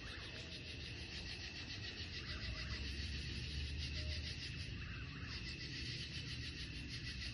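Night-time chorus of crickets and other insects: a dense, steady, fast-pulsing high-pitched trill. A low rumble swells and fades about halfway through.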